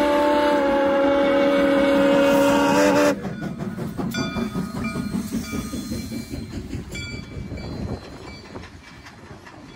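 Soo Line 1003, a 2-8-2 Mikado steam locomotive, sounding its steam whistle in one long, loud chord that cuts off about three seconds in. The engine then rumbles past with clanks and steam, and the freight cars behind it click over the rail joints as the sound fades.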